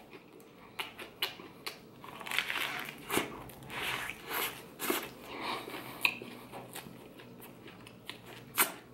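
Biting into a crusty homemade baguette banh mi, the crust crackling and crunching, then chewing. The densest crunching comes about two to six seconds in, and there is a sharp click near the end.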